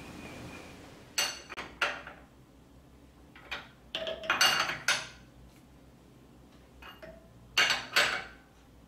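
Metal clinks of a hand wrench on a round column mill's head clamping bolts: three short clusters of sharp metal-on-metal clicks, each with a brief ring.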